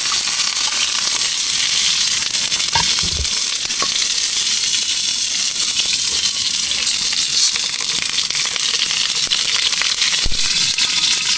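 Chicken wing middles frying in a generous amount of oil in a pan, with a steady sizzle full of crackling spatters. There are a couple of brief low knocks, about three seconds in and again near the end.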